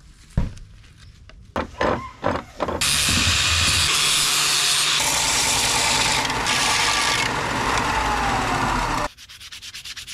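A sharp knock and a few taps, then a benchtop belt sander running with a wooden knife handle pressed against the belt, a loud steady grinding hiss for about six seconds. It stops abruptly, followed by quick back-and-forth hand-sanding strokes on the handle.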